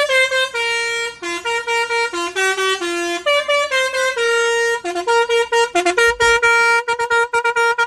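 Basuri telolet musical horn on a minibus playing its preset tune number 5, a melody of stepped horn notes. About six seconds in there is a brief low thud, then the horn stutters one note in rapid on-off pulses.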